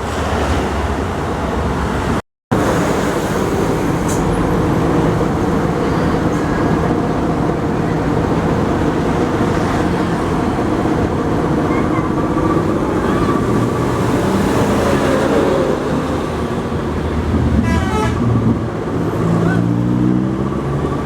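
Tour buses passing on a busy road with engines running and horns tooting, including a 'telolet' horn. Near the end an engine revs rising in pitch as a bus pulls away. The sound cuts out briefly about two seconds in.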